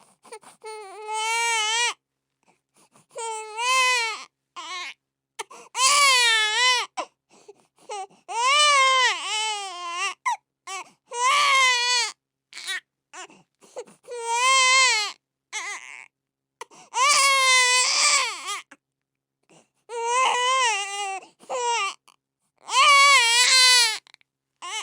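Infant crying: a run of about a dozen wailing cries, each one to two seconds long with a wavering, rising-and-falling pitch, broken by short pauses for breath.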